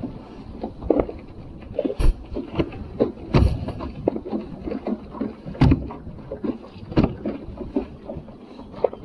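Irregular knocks, taps and clatter on a fishing kayak as gear is handled aboard, with no steady rhythm.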